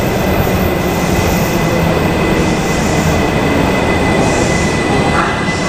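Tokyo Metro 6000 series subway train running into an underground station platform, a steady loud rumble of wheels on rail with a thin steady high tone over it.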